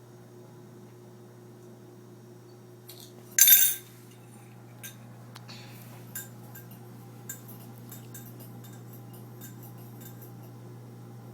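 Glass and metal tableware clinking: one short loud clatter about three and a half seconds in, then scattered small clicks and clinks. A steady low hum runs underneath.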